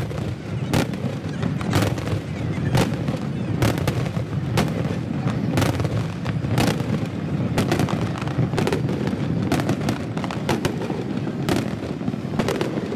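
Large aerial fireworks display with shells bursting in rapid succession: sharp bangs about once a second amid dense crackling and a continuous rumble of overlapping explosions, played back at double speed.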